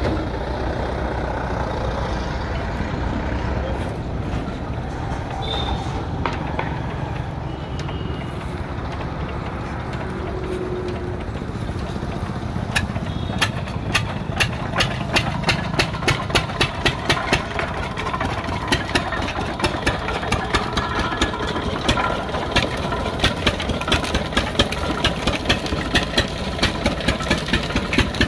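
Single-cylinder stationary diesel engine running steadily, belt-driving a sugarcane crusher. From about halfway through, a regular knocking at about three strokes a second joins the engine sound.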